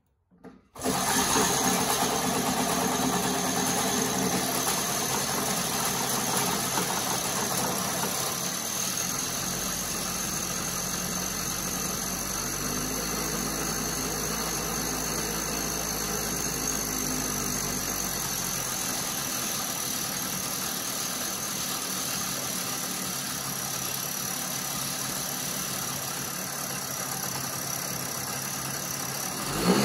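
80cc two-stroke bicycle engine running steadily at idle while it warms up, starting about a second in after a brief gap.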